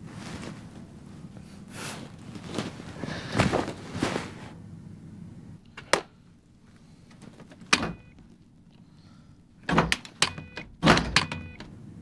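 Hotel room door with an electronic keycard lock: a card tapped against the reader, sharp clicks of the lock and lever handle, and short electronic beeps. Soft rustling before the clicks start.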